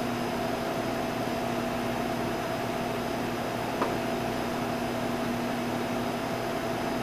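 Steady hum of commercial kitchen machinery, with steady tones running through it. One light tap of a chef's knife on a plastic cutting board comes about four seconds in.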